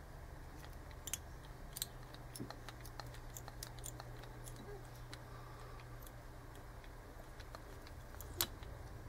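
Faint, scattered small clicks and ticks of hands working at a fly-tying vise as thread is wrapped from a bobbin around a hook, the loudest click near the end, over a steady low hum.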